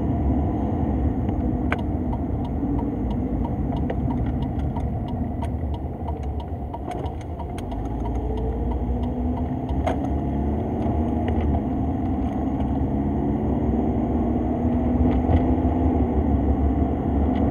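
Honda Civic being driven, its engine and road rumble heard from inside the cabin. The engine pitch rises as the car speeds up about halfway through, and a light regular ticking, about three a second, sounds for several seconds near the start.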